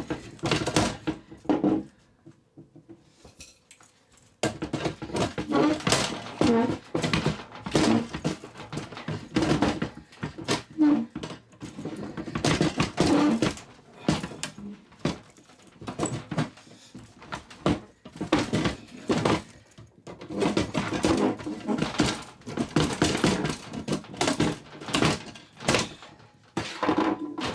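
Small steel biometric gun safe being pressed and struck on its lid, giving rapid repeated thumps and rattles, with a short pause a few seconds in.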